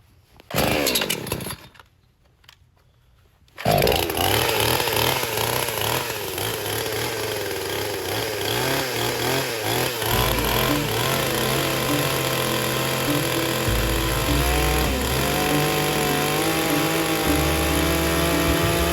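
Budget two-stroke gas chainsaw being cold-started: a short sound from the first pull, a brief pause, then the engine catches about four seconds in and runs loud at high revs, its pitch wavering.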